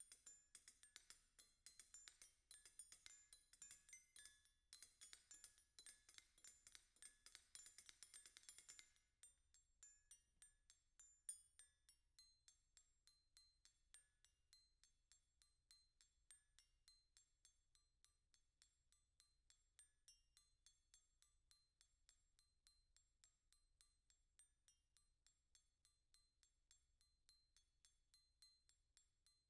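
Metal spoons struck lightly in a percussion piece, each clink with a short bright ring. A dense flurry of overlapping clinks runs for the first nine seconds or so, then gives way to a softer, steady pulse of single clinks, a few a second.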